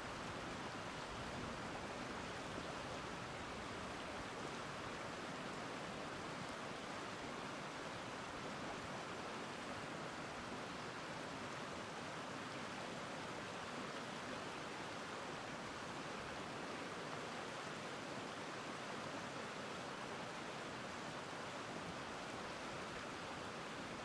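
Shallow river running steadily over rocks and stones, an even rushing sound with no single events.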